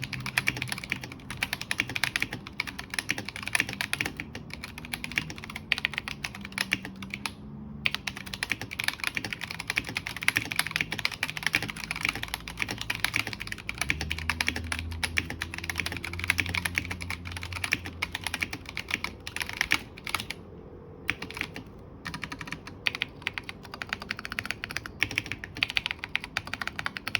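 Continuous typing on a Tecware Phantom 87 tenkeyless mechanical keyboard with Akko Ocean Blue tactile switches, PBT OEM-profile keycaps and a steel plate: a dense stream of keystroke clacks, with brief pauses about eight and twenty-one seconds in.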